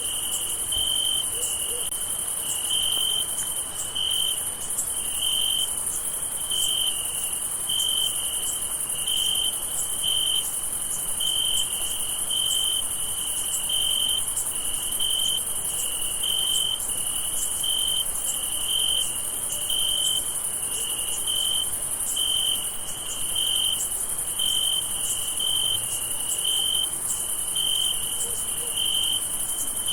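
Night crickets chirping: a mid-pitched chirp repeating steadily about twice a second over a continuous high-pitched insect trill.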